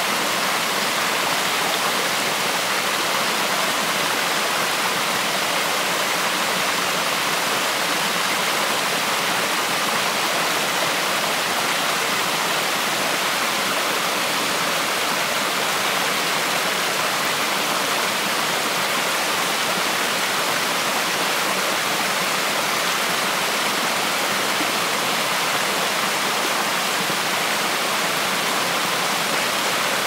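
Water cascading down a waterfall's rock steps: a steady, even rush of falling water.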